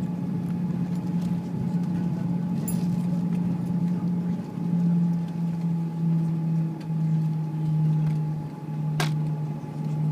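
Cabin noise inside an Airbus A340 slowing on the runway after landing: a steady low drone that steps down slightly in pitch about halfway through, with a faint steady higher tone over it. A sharp click or knock sounds at the start and another about nine seconds in.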